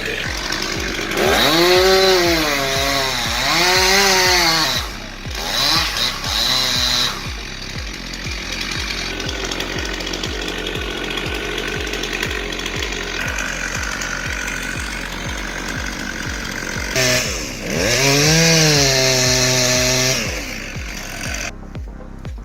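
Chainsaw cutting under load, its engine pitch dipping and rising as it bogs and frees in the cut, in two spells about a second in and again near the end. A steady beat of background music runs underneath.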